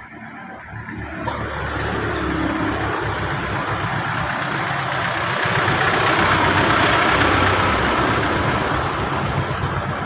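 A motor vehicle passing, its engine and road noise swelling to a loud rush around six seconds in and then easing off.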